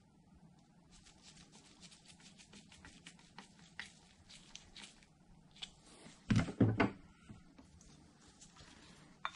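Small metal clicks and scrapes of a screwdriver fastening the front greaser's extension tube onto a General Electric motor, then a quick cluster of two or three heavy thunks about six and a half seconds in.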